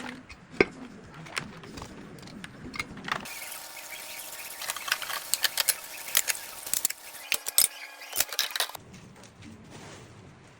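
Kitchen handling sounds: a string of sharp clicks, taps and clinks, like utensils and dishware being knocked and set down. The run is denser and brighter in the middle stretch, where the background changes abruptly twice.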